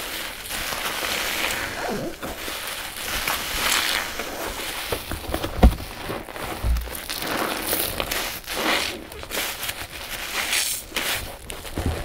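Kitchen sponges loaded with a recycled powder-and-paste mixture squeezed by hand, over and over, each squeeze a second or two apart. A sharp low knock a little before the middle is the loudest moment.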